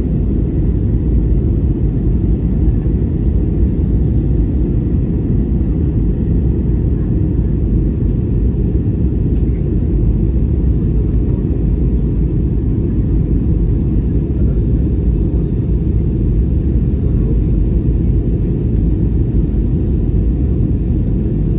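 Steady low rumble of a jet airliner in flight, heard inside the passenger cabin: engine and airflow noise.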